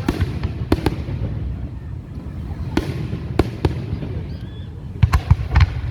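Fireworks going off: irregular sharp bangs and cracks over a low rumble, with a quick cluster of reports near the end.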